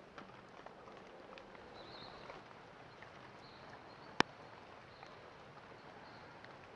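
Faint outdoor forest ambience: a steady hiss with scattered light ticks, and one sharp click about four seconds in.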